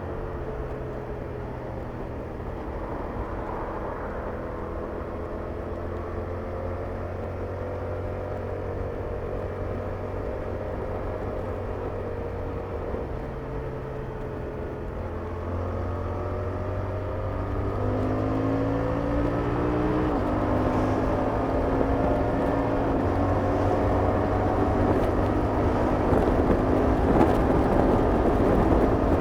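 Yamaha R7's 689 cc parallel-twin engine through its stock exhaust, heard from the rider's seat. It cruises with the revs easing off slowly, then accelerates with two quick upshifts about 17 and 20 seconds in, each dropping the pitch, and pulls louder to the end.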